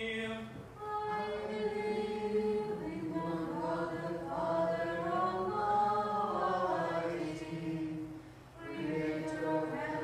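Unaccompanied Byzantine liturgical chant sung by several voices in harmony, in long held phrases. There is a short break between phrases near the end.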